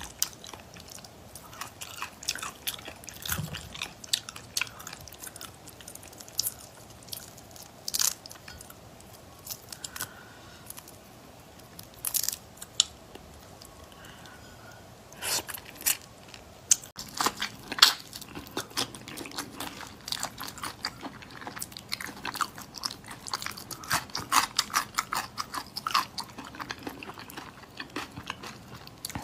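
Shrimp being peeled by hand and eaten close to the microphone: shells cracking and clicking, with wet biting and chewing. The clicks come irregularly and get busier about halfway through.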